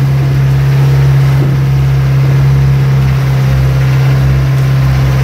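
Inboard engine of a motorized outrigger boat (bangka) running steadily underway, a loud constant drone, with water rushing along the hull.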